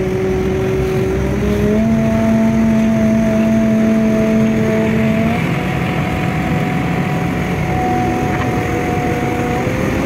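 JCB 3DX backhoe loader's diesel engine running steadily under way, heard from inside the cab. Its pitch rises about two seconds in and changes again a little past halfway.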